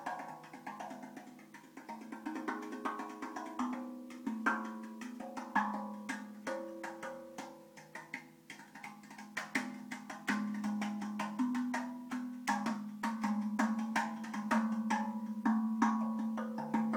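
TerraTonz steel tongue drum played with the hands: quick finger strikes on its tuned tongues, with the ringing notes overlapping over a steady low note. The playing gets louder about ten seconds in.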